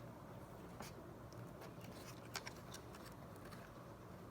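A few faint clicks and taps from small laptop parts being handled and fitted, the sharpest about two and a half seconds in, over a faint steady hum.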